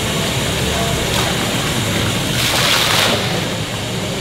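Steady rushing water noise, with a louder hiss for about half a second around the middle.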